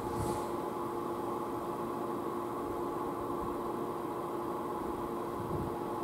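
Stadler FLIRT electric multiple unit (PKP Intercity ED160) approaching slowly on snow-covered track: a steady electrical hum with a few held tones over a light hiss.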